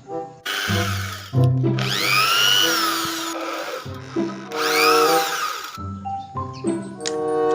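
Small power-tool motor whirring in three spells within the first six seconds, its pitch rising and then falling in the two longer ones, over background music.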